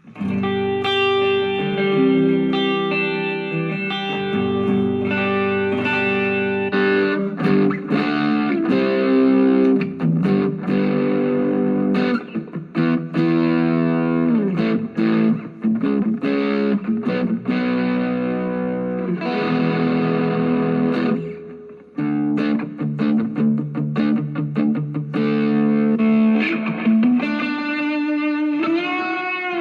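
Electric guitar, an Epiphone SG Special, played through a Zoom G1Four effects pedal, a Vox MV50AC amp and a DIY wine-box speaker cabinet, mixing strummed chords and single-note lines. It breaks off briefly about two-thirds of the way through, and near the end a note is bent upward.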